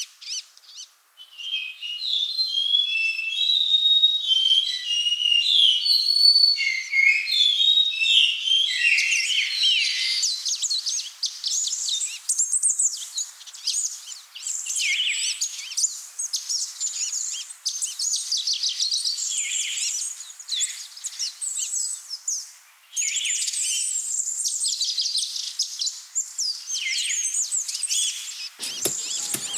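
Many small songbirds singing and chirping at once. Clear separate whistled notes come first, then a dense chorus of quick high chirps and trills fills in. A brief low sound comes near the end.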